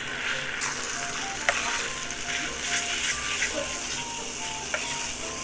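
Rice frying in tteokbokki sauce in a shallow steel pan, sizzling steadily, while a metal spoon stirs and scrapes against the pan with a few sharp clicks. Light background music with short melodic notes plays over it.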